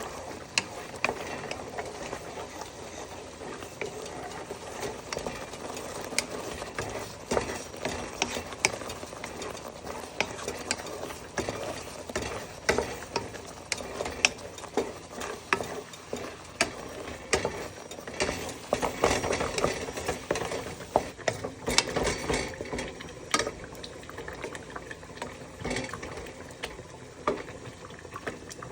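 A spoon stirring in a cooking pot, with frequent irregular clicks and scrapes of the spoon against the pot.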